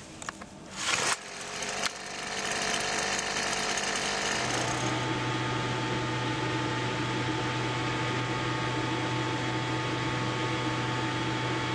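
Small petrol engine of an air blower: a short loud rasp about a second in, then the engine runs, rising in pitch for a couple of seconds before holding a steady drone as it pumps air into an inflatable decoy tank.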